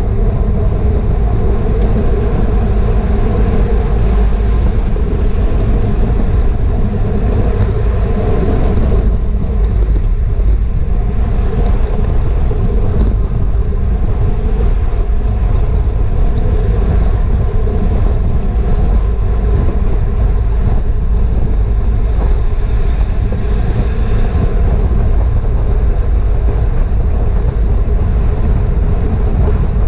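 Wind rushing over an action camera's microphone on a road bike ridden at race speed: a loud, steady rumble with a few faint ticks.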